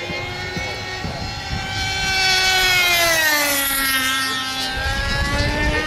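Radio-controlled pylon racer plane making a high-speed pass: a high whine from its motor and propeller, loudest about two to three seconds in, then dropping in pitch as it goes by. A low rumble comes in near the end.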